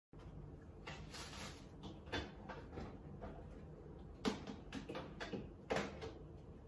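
Short clicks and knocks of containers and shelves being handled in an open refrigerator, over a low steady hum, with two louder knocks about four and a half and six seconds in.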